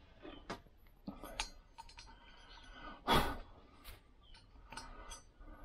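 Quiet hand-work sounds as wavy washers and nuts are fitted by hand onto the head studs of a Lambretta cylinder head: a few light metallic clicks, with one louder, brief noise about three seconds in.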